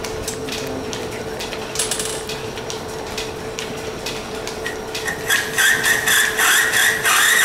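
1917 Brown & Sharpe turret lathe, driven by a flat belt from a line shaft, running with a steady hum and a regular ticking about twice a second. About five seconds in, a louder, rough, high-pitched scraping starts as the turret tool is fed into the brass workpiece and cuts.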